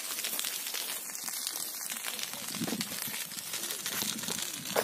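Dense, steady crackling of burning dry grass and undergrowth, many small pops close together, with faint voices briefly in the background.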